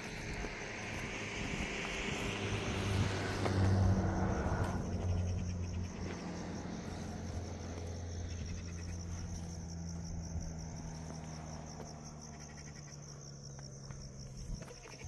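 Steady, rapid insect chirping, like crickets, while a motor vehicle's engine grows louder to a peak about three to four seconds in and then slowly fades away.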